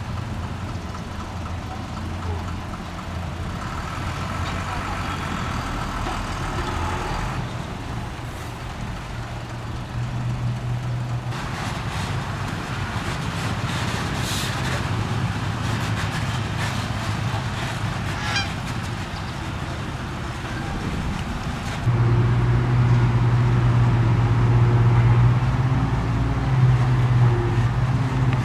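Diesel engines of a bulldozer and dump truck running while earthmoving. A higher, honk-like tone sounds for a few seconds about four seconds in. Clanks and rattles follow in the middle, and the engine gets markedly louder about 22 seconds in.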